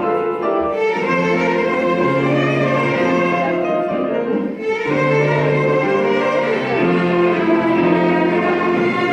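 A violin ensemble playing a sustained, singing melody with piano accompaniment, the phrase breaking off briefly about halfway through before the strings come back in.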